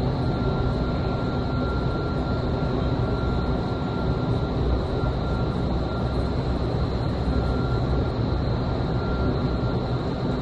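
Vertical wind tunnel running: a steady, loud rush of air from the tunnel's fans, with a thin steady whine over it.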